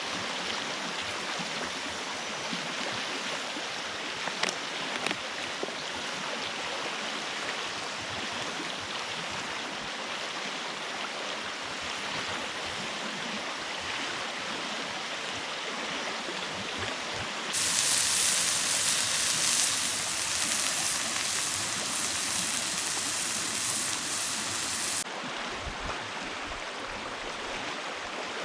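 A flowing stream rushing steadily. About two-thirds of the way in, the rush turns louder and hissier for several seconds, then drops back suddenly.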